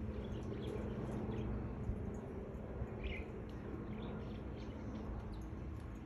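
Budgerigars giving soft, scattered chirps, with a clearer chirp about three seconds in, over a steady low background hum.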